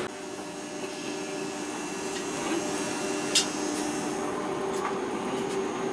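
Siemens H-Bahn suspended monorail running along its elevated track, heard from inside the cabin: a steady electric drive hum with a couple of steady whining tones. A single sharp click about three and a half seconds in.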